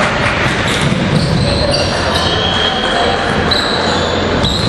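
Sounds of a basketball game in a hall: sneakers squeaking briefly on the hardwood court several times, with players' voices and general court noise, all echoing.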